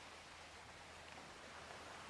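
Very faint, steady sea surf, an even hiss of waves washing on a shore.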